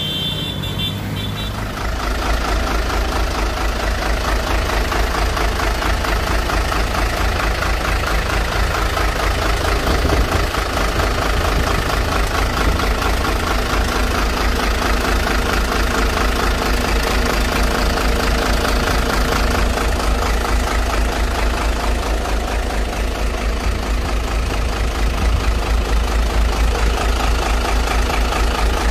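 Hino Ranger truck's inline-six turbodiesel idling steadily, heard close up in the open engine bay with the cab tilted: an even, low, pulsing diesel rumble. Before it, about two seconds in, a short stretch of roadside traffic sound cuts straight to the engine.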